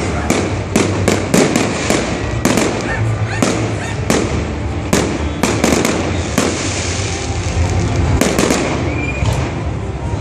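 Fireworks going off: a rapid, irregular string of sharp bangs and crackles that thins out after about six seconds.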